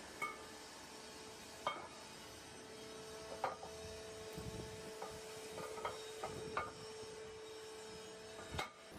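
Factory-floor machinery: a steady machine hum, with several sharp metallic knocks and clanks a second or two apart as steel parts are handled. The hum stops near the end.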